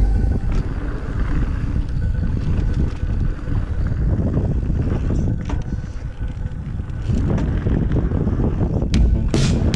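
Wind buffeting an action camera's microphone while riding an Intense Primer mountain bike down a dirt trail, with the rumble and rattle of the bike over rough ground.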